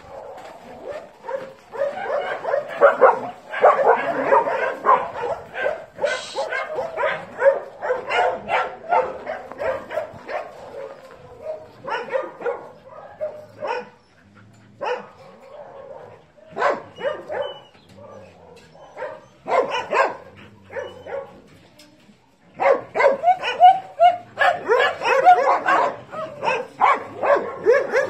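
Dogs barking and yipping at play: dense volleys of short barks for the first dozen seconds, scattered barks through the middle, and another dense run of barking near the end.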